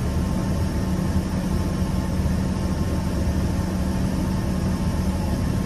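Steady cabin noise inside an Embraer EMB145 regional jet: a low rumble and even hum from its two rear-mounted Rolls-Royce AE 3007 turbofans, with a wash of air noise over it.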